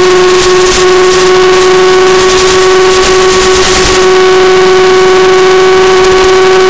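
Mini Skywalker RC plane's electric motor and propeller running at a steady throttle, a loud steady whine heard from the onboard camera, with wind rushing over the microphone that eases about four seconds in.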